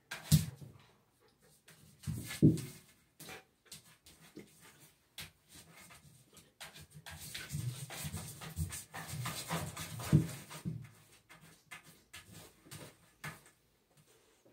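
Puppy's claws scratching and scrabbling on the smooth wall of a bathtub as it paws in a digging motion, with a few louder thumps. The scratching is sparse at first and becomes a busy, continuous scrabble in the middle before tapering off.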